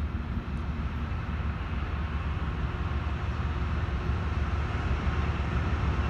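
BNSF GE Evolution-series (Gevo) diesel freight locomotives approaching at a distance: a low, steady rumble that grows slightly louder.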